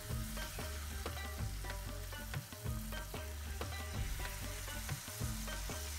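Jalebi batter sizzling and crackling as it is piped in spirals into hot frying oil, under soft background music with steady low bass notes.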